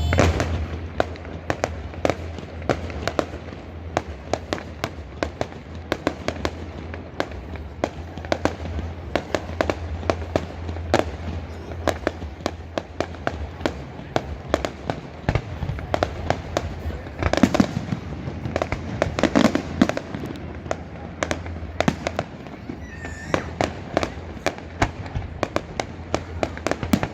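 Fireworks display: a rapid, irregular string of sharp bangs and crackles from bursting shells, with a thicker flurry of bangs a little past the middle.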